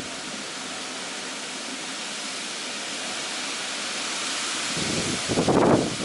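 Summer storm: a steady rushing noise of rain and wind. A short, louder burst of low rumbling comes near the end.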